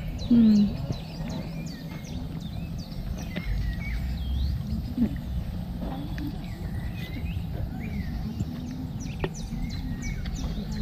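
Small birds chirping in many short rising and falling calls throughout, over a steady low outdoor rumble. A brief, louder low sound comes about half a second in.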